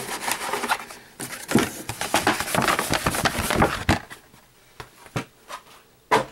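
Hot Wheels blister-carded cars, plastic blisters on card backs, being slid out of a cardboard box and laid down, rustling and clicking against each other. It then goes quieter, with a few light taps and one sharp click near the end.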